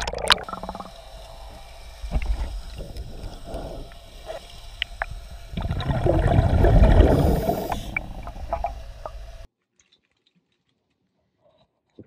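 A camera plunges into seawater with a splash, and the sound turns to muffled underwater noise: a low rumble with scattered clicks and taps, swelling into a louder bubbling rumble about six to eight seconds in. It cuts off abruptly near the end.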